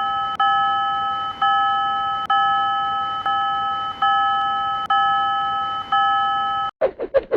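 Railroad crossing warning bell ringing, one chime about every second with each tone ringing on until the next strike. It cuts off suddenly near the end, and a quick run of short plopping sound effects starts.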